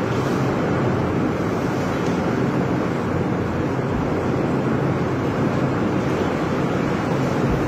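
Very heavy rain pouring down in a steady, unbroken rush, with wind buffeting the microphone.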